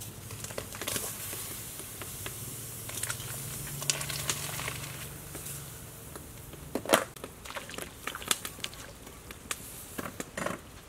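Cut vegetables tipped into a pot of boiling water, with a plastic bag crinkling as it is shaken out. A few separate sharp crackles from the fire under the pot follow in the second half.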